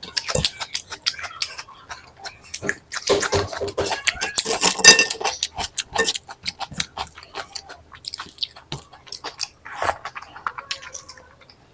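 Close-miked chewing of a mouthful of food: a run of wet mouth clicks and smacks, thickest about halfway through.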